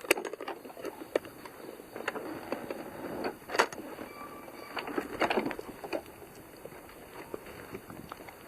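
Irregular light clicks and knocks from a 5-inch gauge garden railway train on its track, fairly quiet, with the sharpest knocks about three and a half and five seconds in.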